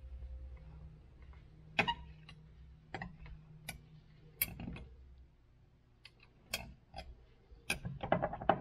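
Metal stirring tool clicking and scraping against a glass measuring cup while heated liquid soft plastic is stirred: scattered sharp taps, several close together near the end. A low hum underneath stops about five seconds in.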